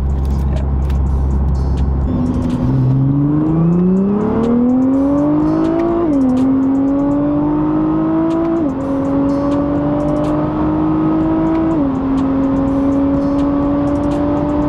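Nissan GT-R's 3.8-litre twin-turbo V6, fitted with an aftermarket Ferrita exhaust, accelerating hard, heard from inside the cabin. After a steady low start, the revs climb steeply, then fall sharply at three quick upshifts, pulling up again after each one.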